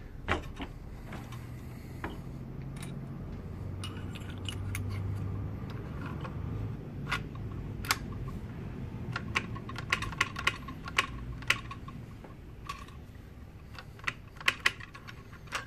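A stripped bolt-action rifle's bolt and a brass cartridge case handled at the action: a run of light metallic clicks and ticks, thickest in the second half.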